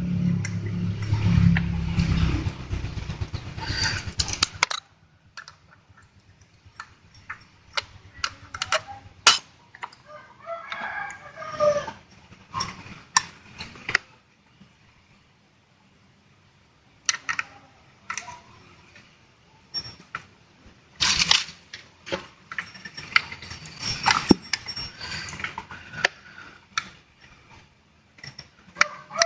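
Scattered metal clicks and knocks of scooter CVT parts being handled and fitted, with chickens clucking and crowing in the background. A loud low hum cuts off suddenly about five seconds in.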